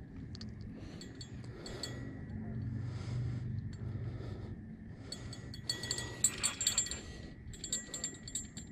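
Light metallic clinking and jingling of fishing tackle, loudest and busiest about six to seven seconds in, over a low steady hum.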